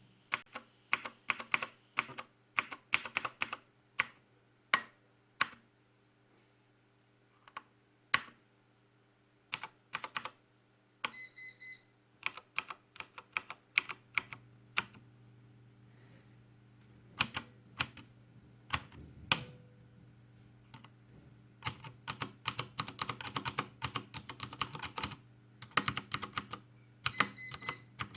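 Keys of a Logitech G610 mechanical keyboard with Cherry MX Brown switches being pressed in irregular clicks and clatters, some off-centre, to show keys that stick when pressed on their side. A short high electronic beep sounds twice, once midway and once near the end, over a faint steady hum.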